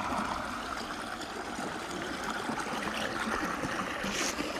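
Shallow creek water running and trickling steadily, with a brief sharp noise near the end.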